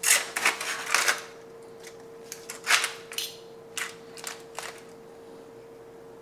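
Knife sawing through cooked brisket and scraping against the aluminum foil lining of the sheet pan, with the foil crinkling, in several short scrapes over a faint steady hum.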